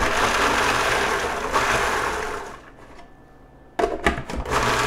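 Food processor chopping a raw onion: the motor runs with the blade chopping, stops about two and a half seconds in, then starts again with a few quick pulses and runs on near the end. It is being pulsed so the onion comes out fairly finely chopped rather than pureed.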